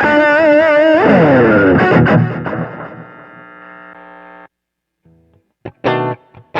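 Distorted electric guitar (a 1990s Giannini Stratosonic) played direct through a Sonicake Sonic IR cabinet-simulator pedal. A held note with wide vibrato drops in pitch into a ringing chord, which fades and is cut off suddenly. After a short gap, a few short choppy chord stabs come near the end.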